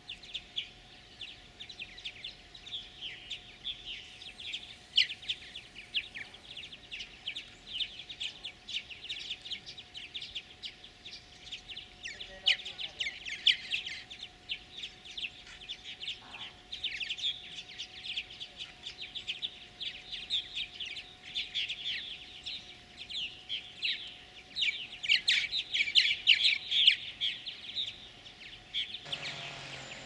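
Purple martins chirping and chattering in a dense, continuous run of short high calls, busiest near the end.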